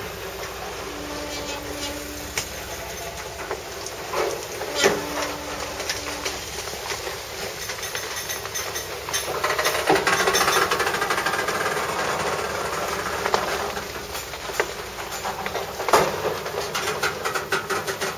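Railcars fitted with bi-directional plows rolling past at track level: steel wheels clicking and knocking over the rail, over a steady rumble that swells in the middle. A faint steady tone sounds twice in the first six seconds.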